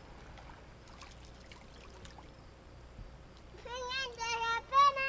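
Faint hiss with scattered clicks, then about three and a half seconds in a high-pitched voice sounds four short held notes, each a fraction of a second long.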